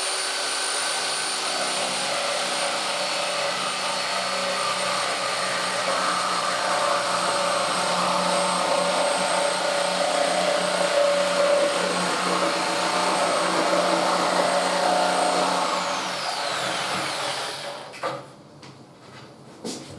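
Electric power saw running with a steady high whine as it cuts through a cabinet panel. Its motor winds down with a falling whine about three quarters of the way through and stops.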